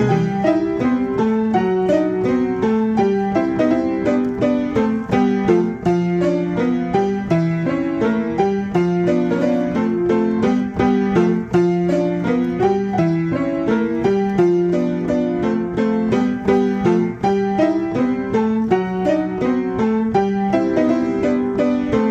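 Player piano playing a QRS paper music roll of a popular song. The notes are sounded by the roll, giving a busy piano arrangement with a steady, even beat.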